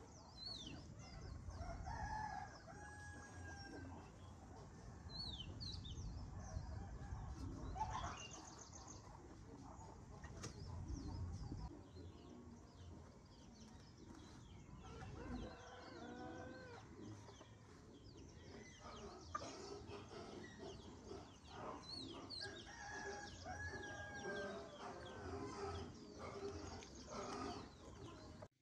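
Chickens clucking and crowing at intervals, with small birds chirping and a low rumble underneath.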